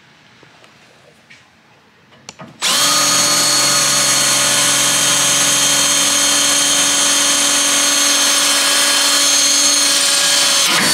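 Cordless drill running at a steady speed for about eight seconds, boring out a spot weld in a car's sheet-steel radiator support with an oiled bit. It starts about two and a half seconds in, after a few faint clicks, and stops just before the end.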